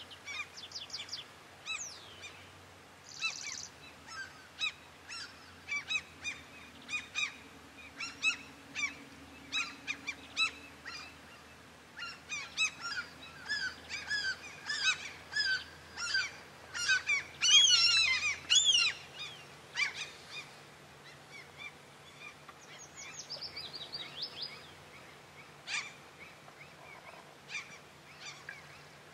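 Birds calling in a long run of short, repeated calls. The calls grow busier and louder toward the middle, peak in a cluster of sharp calls past the halfway point, then thin out to a few scattered calls near the end.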